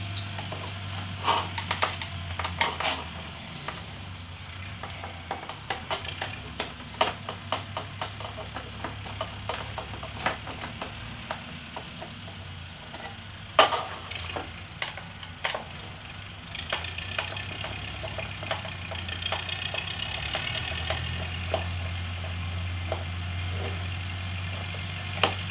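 Hand screwdriver backing screws out of a motorcycle's plastic rear fender piece: scattered clicks and small scrapes of metal on plastic, with one louder knock about halfway through, over a steady low hum.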